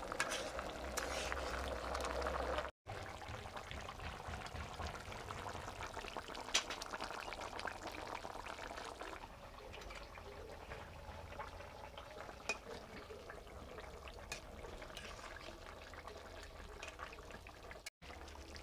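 Papaya and tangra fish curry simmering in a pan, its thin gravy bubbling steadily, with a few faint clicks.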